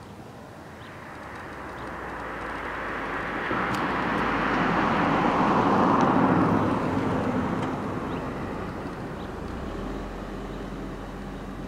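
Firefighting aircraft flying past, its engine noise swelling to a peak about six seconds in and then fading away.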